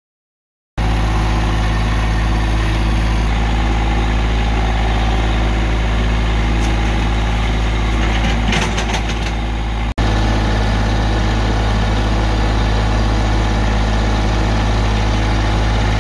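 Massey Ferguson GC1723E sub-compact tractor's three-cylinder diesel engine running steadily, heard from the operator's seat. It starts about a second in and is interrupted by a brief dropout near the middle. A cluster of sharp crackles comes shortly before the dropout.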